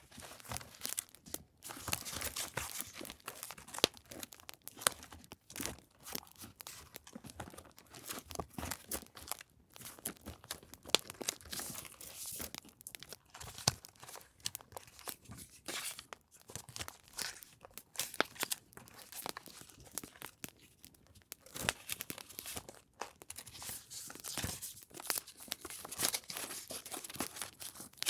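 Paper and packaging being handled, rustled and crinkled up close, over the steady crackle of a campfire sound.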